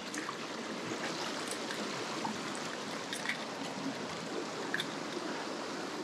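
Mountain stream flowing steadily, an even rush of water with small splashes and drips scattered through it.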